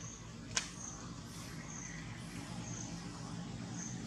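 Outdoor background: a low steady rumble under faint high chirps that repeat every half second or so. A single sharp click comes about half a second in.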